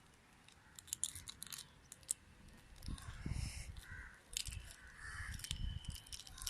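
Crows cawing a few times in the second half, over small sharp cracks and crackles of eggshell being picked off by hand.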